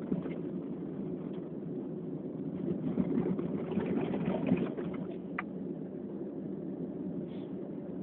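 Steady low rumble of background noise, like a running engine or traffic. It grows louder and rougher for a second or two in the middle, and there is a single sharp click about five and a half seconds in.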